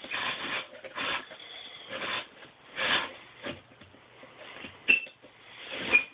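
Hand-turned plywood Geneva stop mechanism with wooden dowel pins, scraping and rubbing in irregular strokes about once a second, with a couple of short high squeaks near the end.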